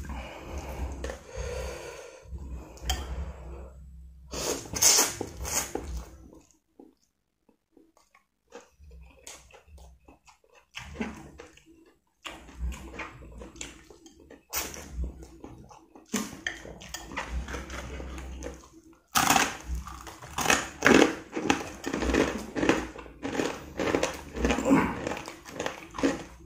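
A person slurping and chewing noodles in soup, a run of short wet mouth noises with a near-quiet pause about a quarter of the way in and a denser, louder stretch over the last third.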